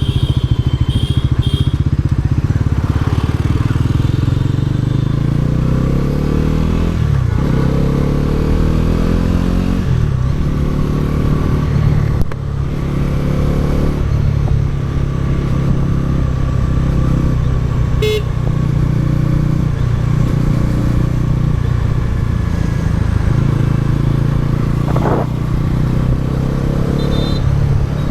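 Bajaj Pulsar NS400Z's single-cylinder engine through its stock exhaust, ridden and accelerating. The revs climb and drop with gear shifts several times in the first ten seconds or so, then it runs at a steadier pace with smaller rises and dips.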